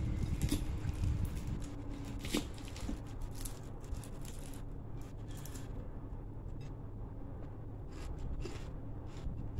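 Fingers tearing apart crispy fried mullet and picking up rice from a plate: a scatter of faint crackles and clicks over a steady low rumble.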